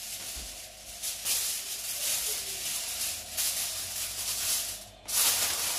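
Aluminium foil crinkling and rustling as a sheet is spread and pressed by hand over a roasting tray, with a brief pause near the end.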